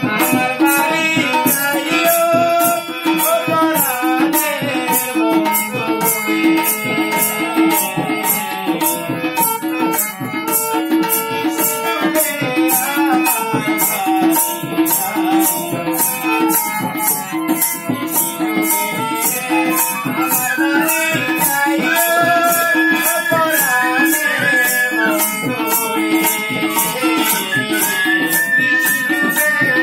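Live Bengali folk song: a harmonium holds steady reed chords under a man's singing, with tabla and a hand-held jingle tambourine shaken about twice a second.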